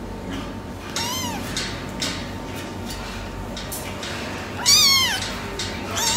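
Young tabby kitten meowing: a short high-pitched mew about a second in, a louder one near the end, and another just starting as it ends.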